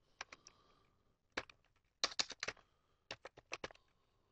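Faint computer keyboard typing: irregular short runs of keystroke clicks, a few at a time, with pauses between them.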